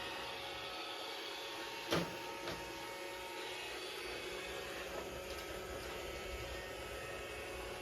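Roomba robot vacuum running, a steady motor whirr with a brushing hum, with one short knock about two seconds in.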